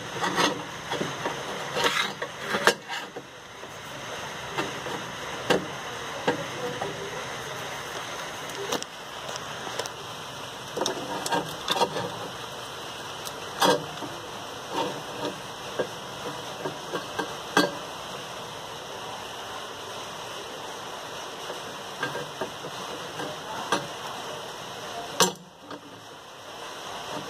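Scattered clicks and knocks of parts and tools being handled while fitting a washing machine's drain valve pull mechanism, over a steady hiss.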